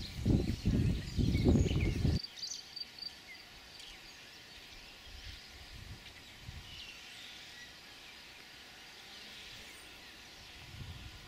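Wind buffeting the microphone in gusts for about two seconds, cutting off abruptly. This leaves quiet outdoor ambience with faint, scattered high bird chirps.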